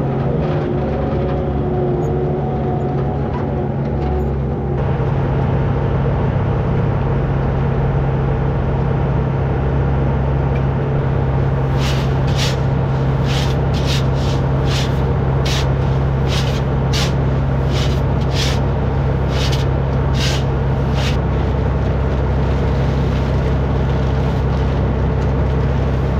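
A farm engine running steadily at a constant speed. In the middle of the run there is a series of sharp clicks at about two a second.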